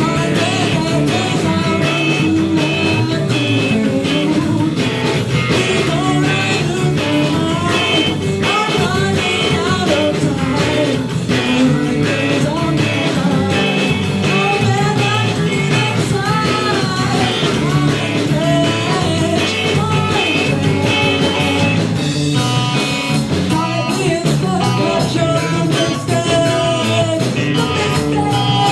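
A rock band playing live with guitar, bass and drums, a voice singing over it.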